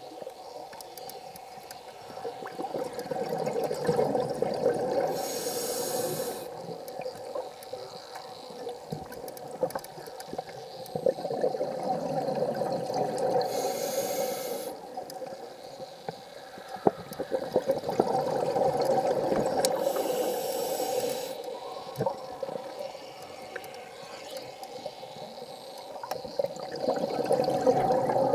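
Scuba diver breathing through a regulator underwater. A slow swelling inhale is followed by a hissing, bubbling exhale of about a second, repeating roughly every eight seconds.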